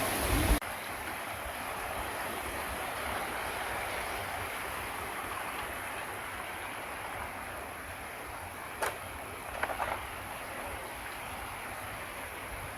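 Javaherdeh Waterfall's falling water making a steady, even rush. A sharp click comes about nine seconds in, followed by a few short ticks.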